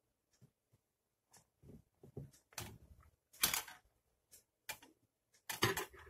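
Small clicks and rustles of fingers handling a charger cable and the plastic battery compartment of an Omron blood pressure monitor, scattered and irregular. The louder ones come about two and a half and three and a half seconds in, with a cluster near the end.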